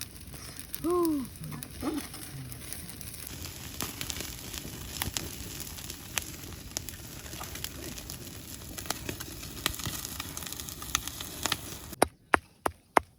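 Food sizzling as it fries in a pan, with scattered crackles. About a second in a short arched call sounds, and near the end a few sharp knocks follow.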